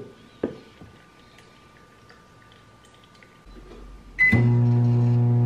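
A couple of light clicks, then about four seconds in a Piccolo microwave oven beeps once as its start button is pressed and starts running with a steady hum.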